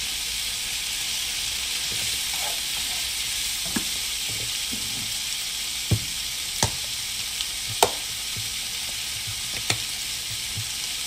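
Pork, tomato and onion sizzling steadily in a frying pan, with a handful of sharp knocks from the middle on as a wooden utensil stirs against the pan.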